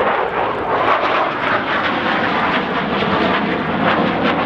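Belgian Air Force F-16 Fighting Falcon's jet engine running loud, a dense rushing noise with a rapid crackle running through it.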